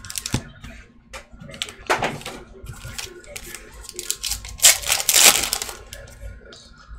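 Foil trading-card pack being handled and torn open, crinkling and crackling, with the loudest stretch of crinkling about five seconds in.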